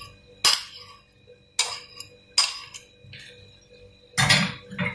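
A plastic serving spoon clinking against a glass salad bowl: a few separate knocks about a second apart, with a louder, longer clatter near the end.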